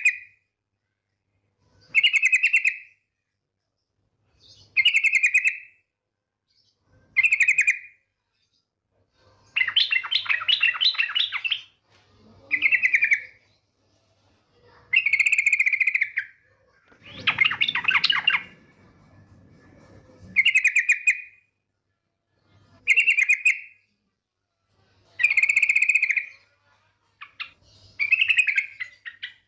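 A female yellow-vented bulbul (trucukan) calling: short, bright chirpy phrases repeat every two to three seconds, and twice the call runs on into a longer burst of rapid chattering notes. A low rumble sits under the second long run.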